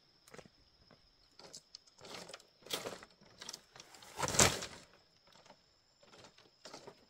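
Footsteps and rustling on a split-bamboo platform, then a heavy woven sack of harvested corn dropped onto the bamboo slats with a thud about four seconds in.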